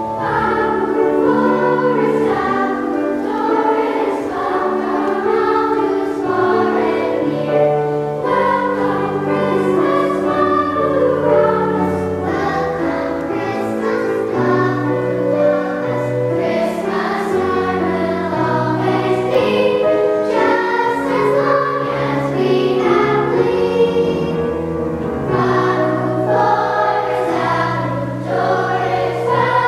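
A girls' choir singing in sustained, flowing phrases, accompanied by a grand piano holding low notes beneath the voices.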